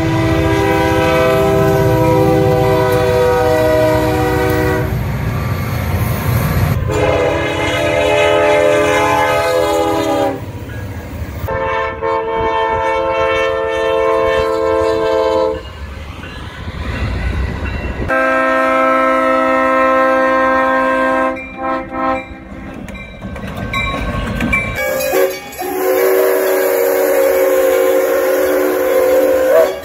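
Train horns blowing in about five separate long blasts, each a chord of several steady tones, with the pitch and chord changing from blast to blast as from different trains. A diesel locomotive's low engine rumble runs under the first blasts.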